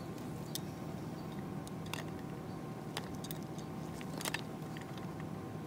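Quiet workshop room tone with a steady low hum, and a few faint, light clicks from a fishing lure being turned in a gloved hand.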